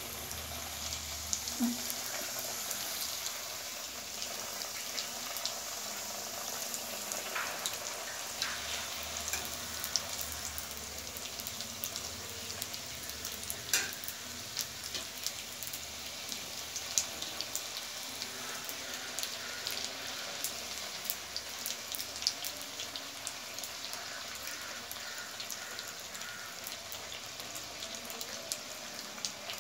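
Small semolina puris deep-frying in hot oil in a kadai: a steady sizzle with crackling pops throughout, and a few sharper clicks.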